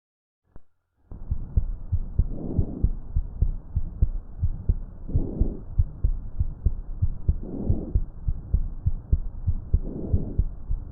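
Lung sounds heard through a stethoscope on the chest: four soft breaths, evenly spaced, over a steady thumping heartbeat. The recording starts about a second in, after a brief click.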